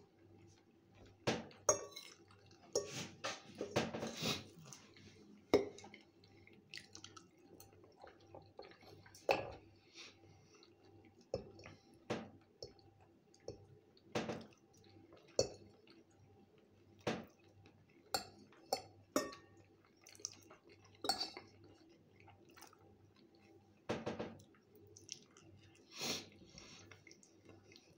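Metal fork clinking and scraping against a ceramic bowl in irregular sharp clicks, with close-up chewing of fried potatoes and eggs between them.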